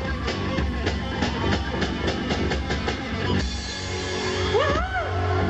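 Rock band playing an instrumental passage: a drum kit keeps a steady beat under guitar, then the drums drop out about three and a half seconds in, leaving held notes with sliding pitch bends.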